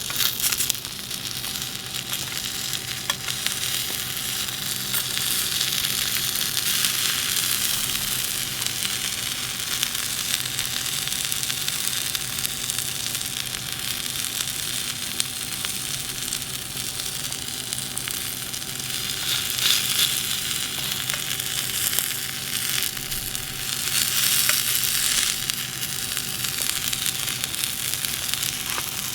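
Chikuwa topped with kimchi and cheese sizzling and crackling as it fries in a pan, swelling louder a few times, over a faint steady hum.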